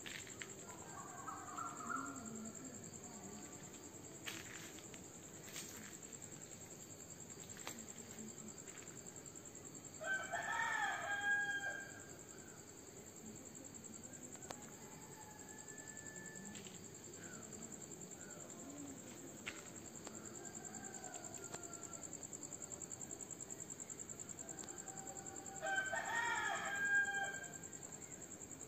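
A rooster crowing twice, each crow about two seconds long and the two some fifteen seconds apart, with fainter crows or bird calls in between. Under it runs a steady high insect trill, typical of crickets.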